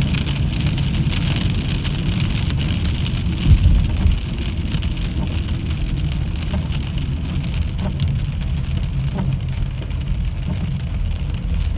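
Car driving on a wet road in the rain, heard from inside the cabin: a steady low rumble of engine and road with the hiss of tyres on wet asphalt and rain on the car. A brief louder thump comes about three and a half seconds in.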